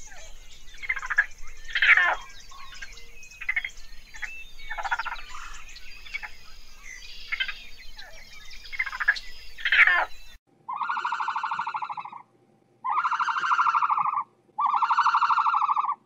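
Raccoons chittering and squealing in many short, high, quavering calls. Near the end come three long, even, buzzing trills, each about a second and a half.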